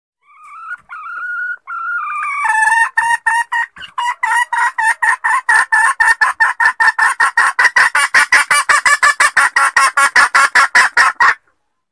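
Junglefowl hen calling: a few drawn-out notes, then a fast, steady run of clucks, about five a second, that stops suddenly near the end. It is a hen's lure call of the kind used to draw wild junglefowl cocks out of hiding.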